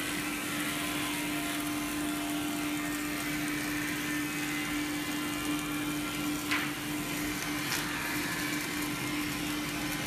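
Sawmill twin bandsaw and roller conveyor running, a steady machine hum with one constant tone as log halves pass through the saw. A short high squeak about six and a half seconds in.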